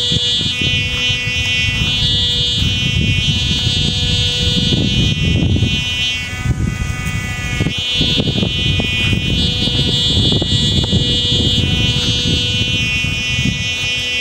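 A kite's hummer ('sumba'), its reed made from sack material, buzzing loudly in the wind. It holds one steady pitch with many overtones and swells and fades every couple of seconds. Wind rumbles low on the microphone underneath.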